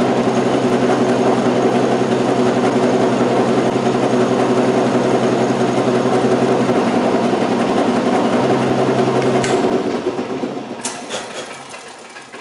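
Milling machine spindle running steadily while an end mill cuts a notch into the edge of a fibreglass circuit board. About ten seconds in the sound winds down and fades, with a few light clicks near the end.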